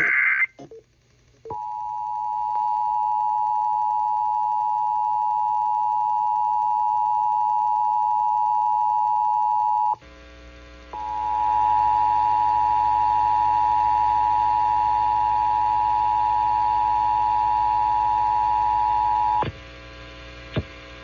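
Emergency Alert System attention signal: the steady two-tone 853 and 960 Hz alert, sounded twice for about eight and a half seconds each with a second's break between, the second time over a low hum. It opens with the tail of a short burst of warbling data tones from the alert's digital header.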